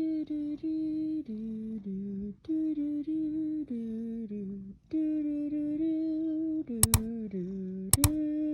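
A person humming a simple tune in three short phrases of held, stepping notes, with two pairs of sharp clicks near the end.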